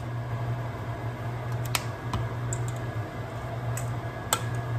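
A handful of scattered light clicks and taps from a utensil against a stainless steel mixing bowl as potato filling is stirred, over a steady low hum.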